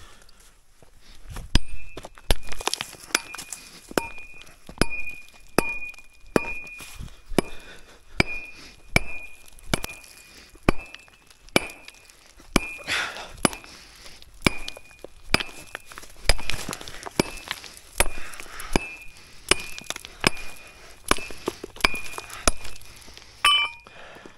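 A metal tool striking stone over and over, about three blows every two seconds, each blow a sharp clink with a thin ring between strikes. It starts about a second and a half in.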